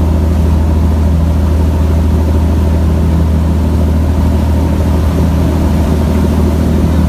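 Boat engine running steadily, a loud deep unbroken hum.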